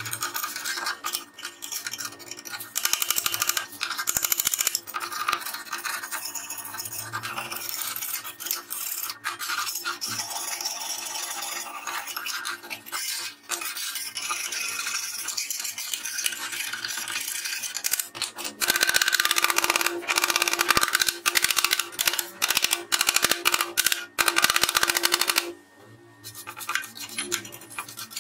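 Rust and grime being scraped and scrubbed off the rusty steel base of an old cut-off saw, first with a thin hand scraper, then with a stiff-bristled brush, in quick rough back-and-forth strokes. It is loudest for several seconds in the second half and drops off briefly near the end.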